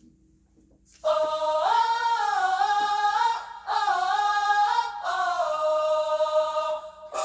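A woman's voice singing an alto part with no accompaniment, in three phrases that start about a second in.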